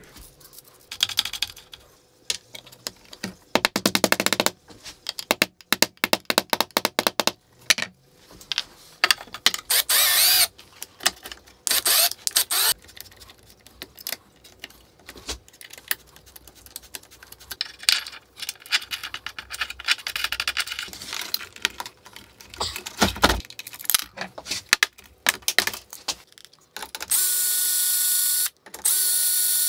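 Scattered metallic clicks, ticks and rattles of hand work on machine screws with an Allen key and tools on a metal-strewn bench. Near the end a cordless drill/driver runs twice in short steady spins, driving screws.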